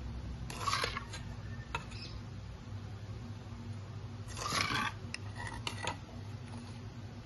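A spoon scraping and clinking against a steel bowl as thick, oily masala paste is spooned onto fried tilapia pieces: two short scraping bursts, about half a second in and again about four seconds in, with a few light clicks between and after.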